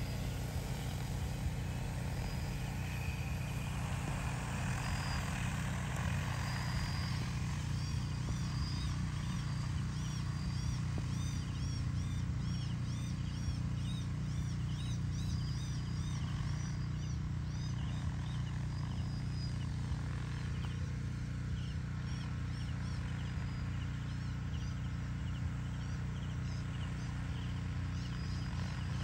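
Steady low hum of a DJI T20P agricultural spray drone's rotors working the rice field. High arched chirps repeat in quick runs over it from about eight seconds in, and again near the end.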